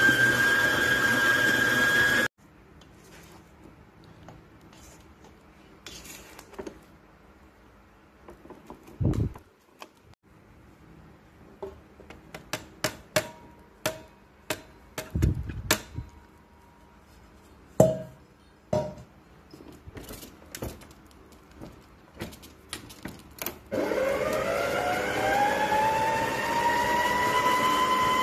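Electric stand mixer's motor whining, cutting off about two seconds in. Then scattered knocks and clinks as flour is added to the steel bowl, and near the end the mixer starts again, its whine rising in pitch as the motor speeds up.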